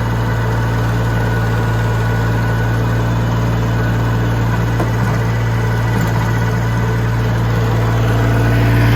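Massey Ferguson tractor engine idling steadily with a deep even hum, running to test a newly fitted radiator, getting slightly louder near the end.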